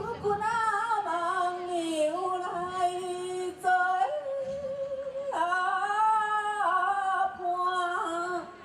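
A single voice singing a Hengchun folk song in Taiwanese Hokkien through a headset microphone, in long held, gently wavering notes over several phrases.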